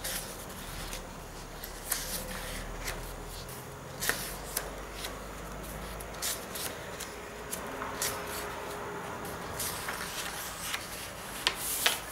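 Pages of a thick handbound book being turned by hand one after another: a steady paper rustle with about a dozen crisp, irregularly spaced page flicks.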